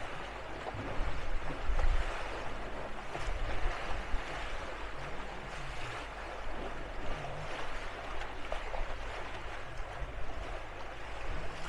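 Wake water rushing and churning steadily past a sailing trimaran's stern, with an uneven low rumble underneath.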